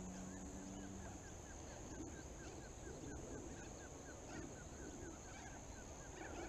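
Faint pond-side ambience: a steady high-pitched drone and a small animal chirp repeated about four times a second. A low hum stops about a second in.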